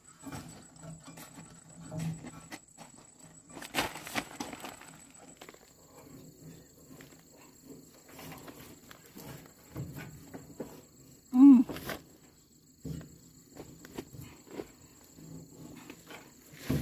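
Outdoor ambience: a steady high-pitched insect whine, with scattered faint rustles and small knocks. One short loud call, rising then falling in pitch, stands out about eleven and a half seconds in.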